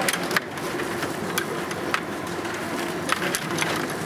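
Rod hockey game in play: the metal control rods rattling steadily as they are pushed, pulled and spun, with sharp clicks from the puck and plastic players striking each other and the boards, about eight in all.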